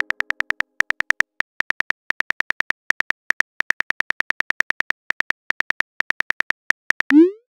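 Simulated smartphone keyboard clicks: a fast, even run of short taps, about five or six a second, as a text message is typed out. Near the end they stop and a short rising whoosh sounds as the message is sent.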